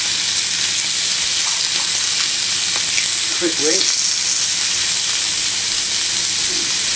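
Fillet steaks searing in butter on a glowing-hot griddle pan, giving a steady sizzle.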